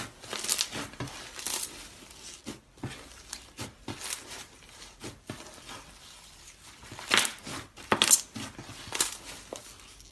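Slime being squeezed and pressed by hand, giving irregular crackling, popping and crunching sounds, with the loudest pops about seven to nine seconds in.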